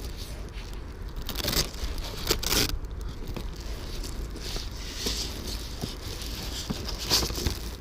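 Rustling and crinkling handling noise, with a few louder bursts, over a steady low rumble.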